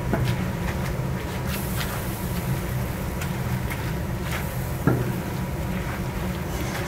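Pork stir-frying in a large steel cooking kettle: a wooden paddle scrapes and clicks against the metal over a steady low rumble, with one sharper knock about five seconds in.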